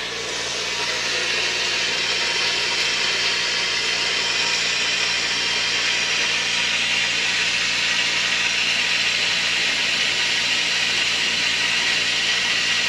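Water hissing steadily through a partly opened shut-off valve as the newly plumbed lines and filter housing fill.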